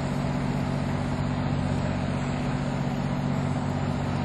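A steady low hum of several constant tones, with an even hiss over it; nothing starts, stops or changes.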